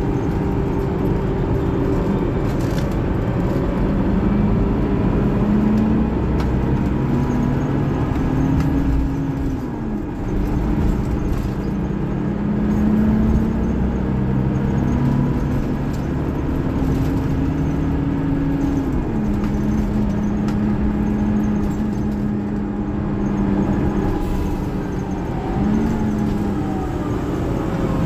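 Scania K360IB bus's DC13 inline-six diesel pulling under load, its note climbing slowly and then dropping sharply at Opticruise automated upshifts about ten and nineteen seconds in.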